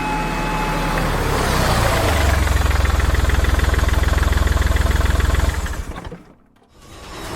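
Truck engine idling with a fast, even throb, fading out near the end. A held siren tone trails off about a second in.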